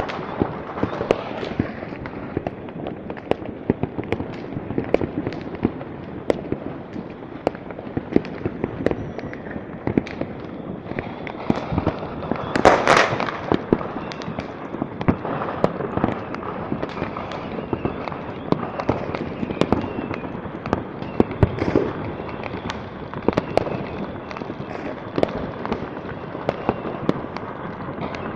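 Many firecrackers and fireworks going off at once in a dense, unbroken crackle of pops and bangs, with one louder burst about halfway through.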